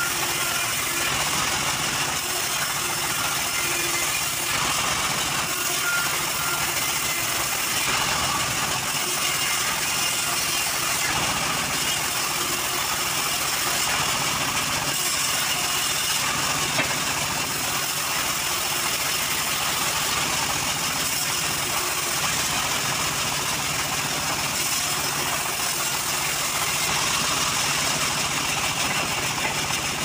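Homemade band sawmill running steadily as teak boards are fed through its blade.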